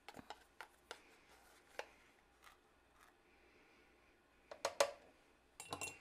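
Light clicks and taps of a plastic spice container and a measuring spoon being handled, with a couple of sharper clicks about four and a half seconds in.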